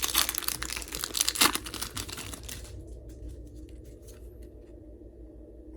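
Foil booster pack wrapper being torn open and crinkled by hand, louder near the start and again about a second and a half in, dying down to faint rustling after about three seconds.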